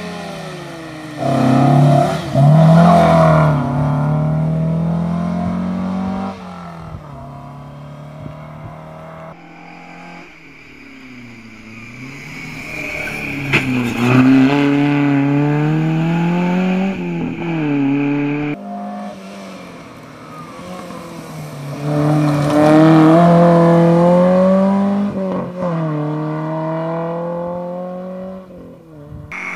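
Historic rally cars driven hard through a hairpin and away, engines revving up and falling back at each gear change: first a Datsun 510 SSS, loudest about two seconds in, then a Ford Fiesta Mk1 XR2 on two further passes after cuts, loudest about 22 seconds in.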